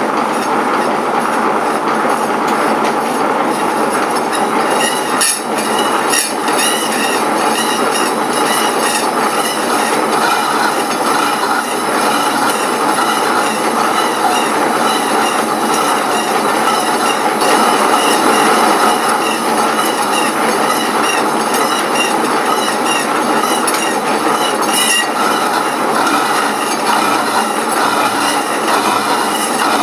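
Power saw cutting through a cast aluminium bar: a steady loud cutting noise with a high metallic squeal, with a few brief clicks about five seconds in and again near the end.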